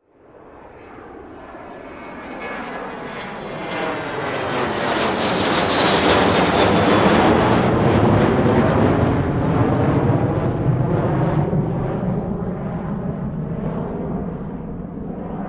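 Jet aircraft flying past: its engine noise swells from nothing over about six seconds, peaks, then slowly fades, with a high whine falling in pitch as it goes by.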